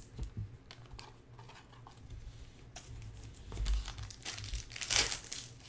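Crinkling of foil trading-card pack wrappers and trading cards being handled. Scattered light clicks and rustles grow louder between about three and a half and five seconds in.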